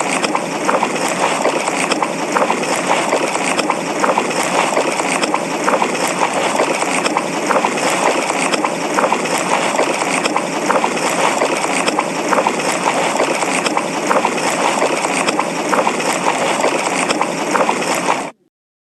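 Biollante monster sound effect: a dense, steady hiss crowded with small crackles and clicks, cutting off abruptly just before the end.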